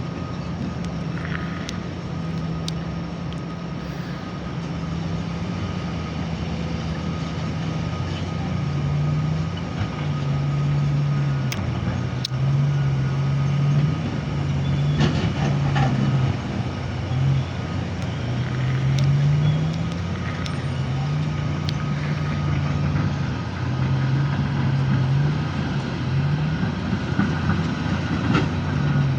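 Diesel engine of heavy earthmoving machinery running under work load, its pitch stepping up and down repeatedly as the load changes.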